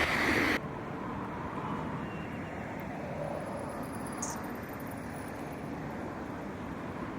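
Background music cuts off abruptly about half a second in, leaving a steady low rumble of street traffic ambience.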